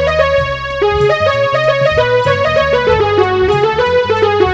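Background music: a quick melody of short stepping notes over held bass notes.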